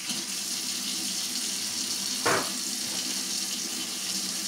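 Kitchen faucet running steadily, filling a pot with hot water. A single short knock a little over two seconds in is the loudest moment.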